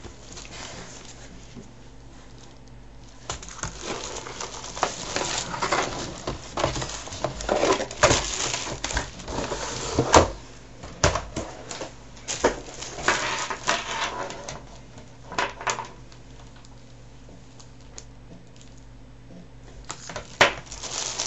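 Packaging and a keyboard being handled: rustling and crinkling with many sharp clicks and knocks. It is busiest from about three seconds in to about sixteen, with one loud knock about ten seconds in, then goes quiet apart from a short burst of handling near the end.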